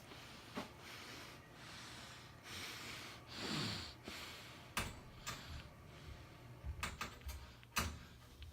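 Breathing close to the microphone, several soft breaths in the first four seconds, then a handful of sharp clicks and knocks from about five seconds in, over a faint steady low hum.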